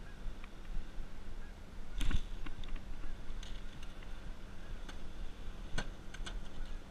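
Steady low machine hum from a bowfishing boat, with a few sharp knocks: the loudest about two seconds in, another just before six seconds.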